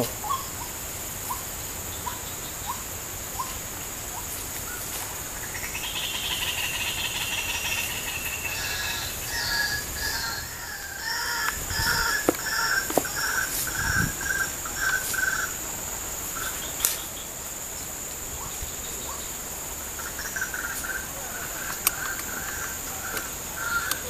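Steady high buzz of insects such as crickets or cicadas, with runs of repeated bird calls at about two notes a second in the middle and again near the end. A few sharp clicks stand out.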